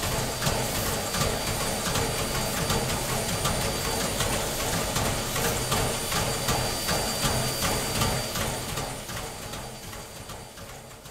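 Reading & Northern 2102's steam excursion train running by: a dense mechanical din full of rapid clicks and clatter, fading away over the last few seconds.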